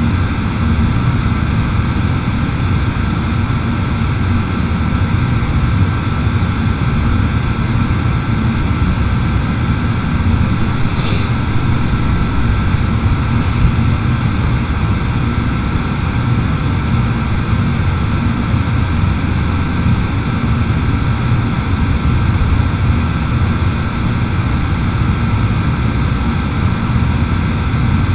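Steady, loud background rumble with a few thin, constant high whines over it, a machine-like hum such as a fan or motor close to the microphone; a short click about eleven seconds in.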